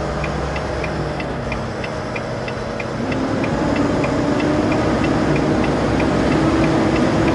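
Heavy truck's diesel engine running inside the cab while the turn signal relay ticks about three times a second. About three seconds in, the engine speeds up and gets louder as the truck pulls through the turn.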